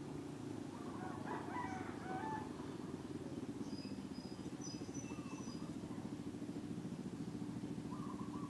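Domestic cat purring steadily while its belly is rubbed, a rapid low rumble. A crowing call rises and falls in steps about a second in, and faint high bird chirps follow in the middle.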